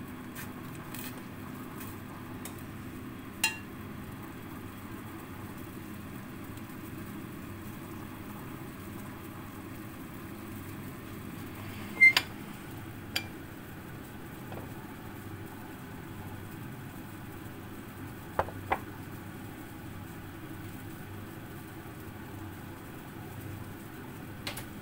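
A steady low kitchen hum, with a few sharp clinks of utensils against pots and the counter: the loudest about twelve seconds in, another a second later, and a quick pair about eighteen seconds in.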